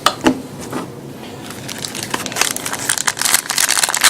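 Plastic trading-card pack wrapper crinkling as it is handled and opened, the crackling growing denser over the second half, after two sharp clicks near the start.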